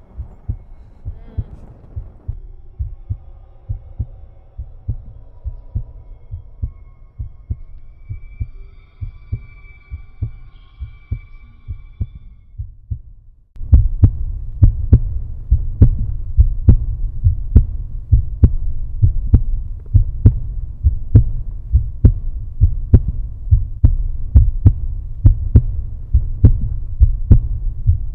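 Heartbeat sound effect: a steady run of low, even thumps that jumps suddenly louder and fuller about halfway through. Faint held high tones sound over it in the first half.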